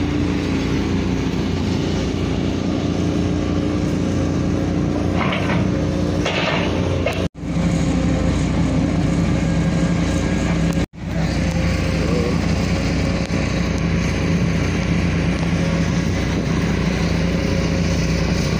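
Steady motor vehicle engine drone with road noise, cutting out for an instant twice, about seven and eleven seconds in.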